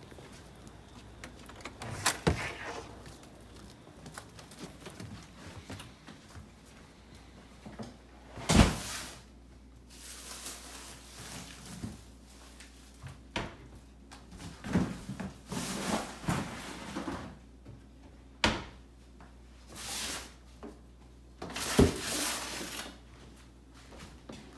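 Plastic litter box and scoop being handled: scattered knocks and clatters, the loudest about eight and a half seconds in, with several short bursts of rushing noise between them.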